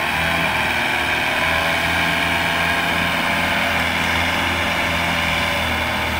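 Kubota M108S tractor's diesel engine working steadily under load as it pulls a trailer heavy with cassava sacks through mud up a slope.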